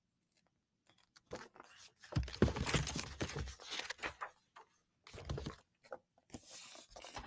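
Paper pages of a picture book being handled and turned: irregular rustling and flapping of paper with dull bumps of the book, starting about a second in.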